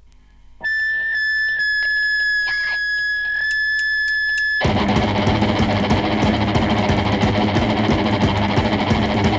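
Out of the quiet vinyl groove, a distorted electric guitar's feedback whine starts about half a second in and is held on one high steady note for about four seconds. Then the full band comes in with distorted guitars and drums: fast d-beat crust punk.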